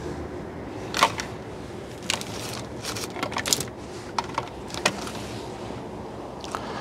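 Irregular clicks, knocks and rattles of a white plastic mains transformer and scrap electrical cables being handled and dropped, over a low steady background noise.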